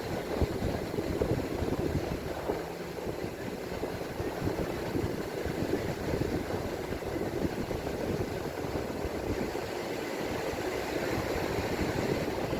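Strong sea wind buffeting the microphone: a steady, gusty rumble with no clear tone.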